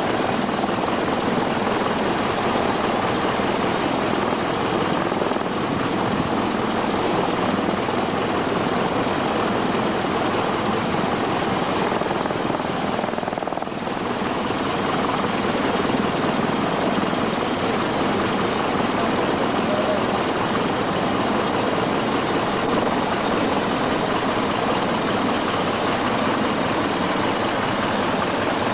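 Boeing Stearman biplane's radial engine running steadily with its propeller turning, a continuous loud engine-and-propwash noise that dips briefly about halfway through.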